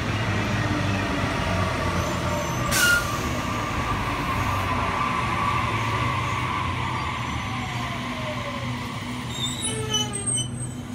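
Sydney Trains double-deck electric train running along the platform: a steady rumbling hum of motors and wheels on rail, with a brief sharp hiss about three seconds in and a slowly falling whine later on.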